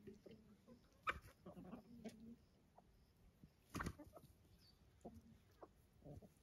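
Free-range domestic chickens clucking faintly while they feed, with a few sharp clicks, the loudest a little before four seconds in.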